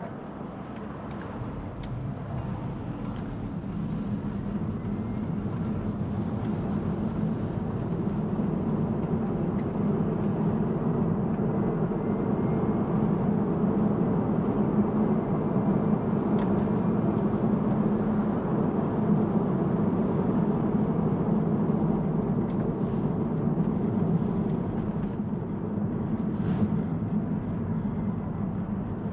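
Road and tyre noise heard inside a Tesla Model 3's cabin as the electric car pulls away from a stop and gains speed. The steady hum grows louder over the first dozen seconds, then holds.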